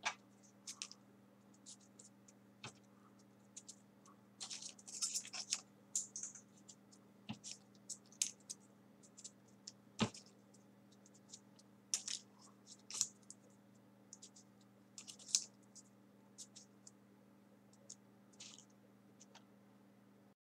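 Folded paper 3D origami units rustling and clicking as they are picked up and pushed onto a paper wing: scattered short crinkles and taps, irregular, over a faint steady low hum.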